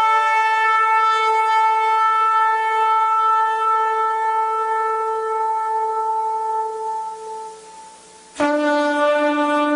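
A shofar (ram's horn) sounding one long, held blast that fades away about three-quarters of the way through. A new, lower-pitched blast starts abruptly near the end.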